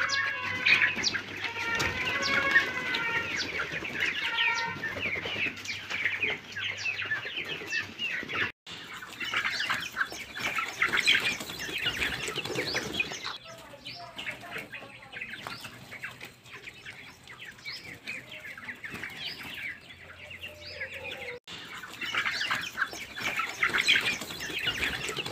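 Flock of desi (native Indian) pullets clucking and chirping continuously, with bursts of wing-flapping as birds scuffle.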